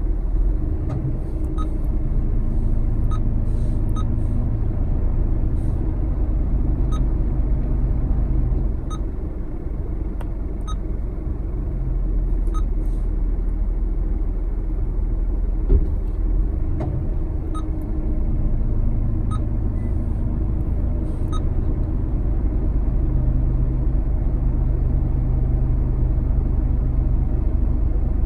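Car driving, heard from inside the cabin: a steady low road-and-engine rumble, with the engine hum dropping about nine seconds in and picking up again around eighteen seconds, and faint light ticks every couple of seconds.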